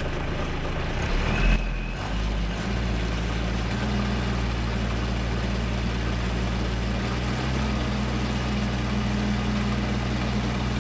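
Kubota LX2610 compact tractor's diesel engine running steadily just after starting, settling into an even idle about two seconds in.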